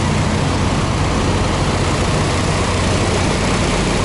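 Heavy diesel semi-truck engine running steadily: an unbroken low drone with an even hiss of noise above it.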